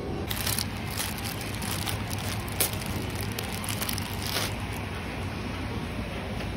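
Plastic wrap on bagged carrots crinkling and crackling as the packs are handled and one is picked up, over a steady low hum; the crinkling stops a little after the middle.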